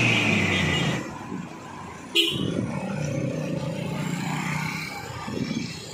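A vehicle horn honks for about a second, then vehicle engines run slowly as traffic creeps past a broken-down truck.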